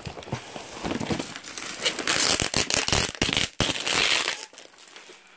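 Plastic packaging wrap being pulled off and crumpled by hand, crinkling and crackling in loud bursts that die down near the end.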